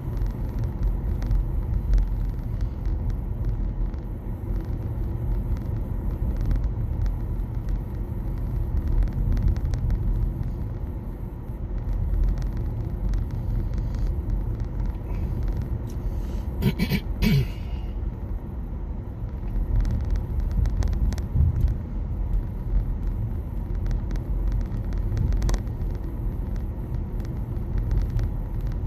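Road and tyre noise inside the cabin of a 2021 Nissan Leaf electric car driving at speed: a steady low rumble with no engine note. A brief higher-pitched sound rises over it about halfway through.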